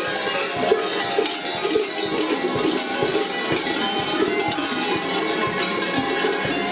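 Many large bells worn on the belts of fur-costumed kukeri dancers clanging together without a break as the dancers jump and sway, a dense ringing jangle.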